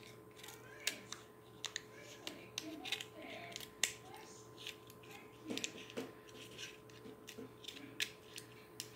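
Scissors snipping a thin strip of card in many short, irregular, sharp snips.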